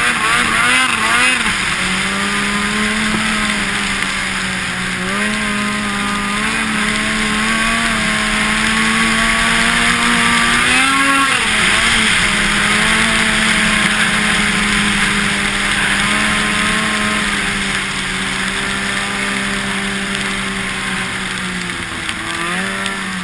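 Ski-Doo MXZ X-RS 800 snowmobile's two-stroke Rotax 800 engine running under way, its pitch shifting up and down with the throttle, climbing sharply about ten seconds in and then dropping back. A steady rushing hiss runs underneath.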